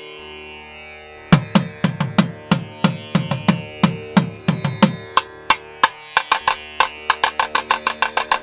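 Instrumental background music: a held drone, then drum strokes come in a little over a second in and quicken near the end.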